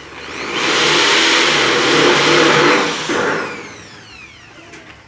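Electric hand drill running at speed with its bit boring into the painted sheet-metal gutter, loud from about half a second in to about three seconds, then the motor winding down.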